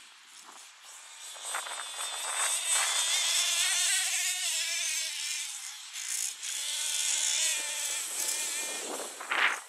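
Hot Bodies Lightning GTX2's twin .26 nitro engines running at high revs, a high buzzing whine that swells in about a second in and wavers up and down in pitch with the throttle.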